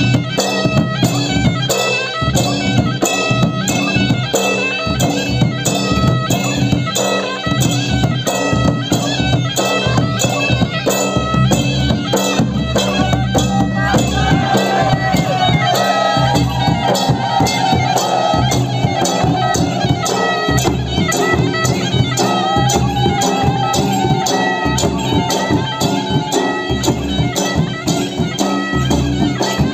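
Traditional Odia folk music for Danda Nacha: drums keep a fast, steady beat under a sustained reedy wind-instrument drone and melody. A higher wavering melody line comes in about halfway through.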